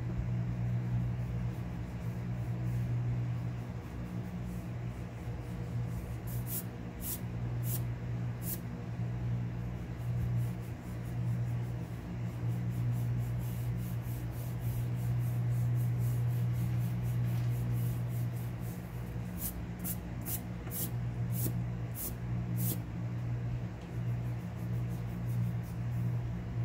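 A steady low hum, with a few short faint ticks in two clusters, one about a quarter of the way in and one a little past the middle.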